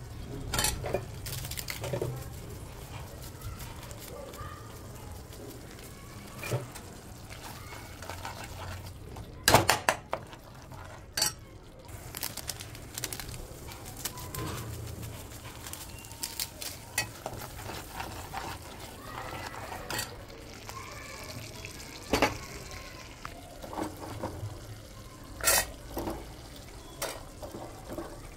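Thick onion-tomato masala gravy bubbling in a kadai as it cooks down until the oil separates. A steel ladle knocks and scrapes against the pan now and then, loudest about ten seconds in.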